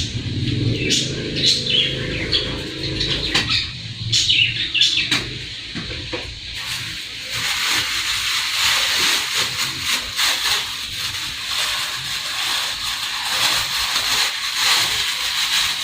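Background sounds with no clear source: short bird-like chirps over a low rumble that fades out about three and a half seconds in, then a steady high hiss from about six seconds in.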